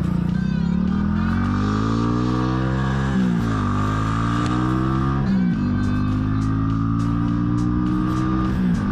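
Motorcycle engine accelerating through the gears: the revs climb steadily in each gear and drop sharply at upshifts about three seconds in, about five and a half seconds in, and again near the end. Background music plays along with it.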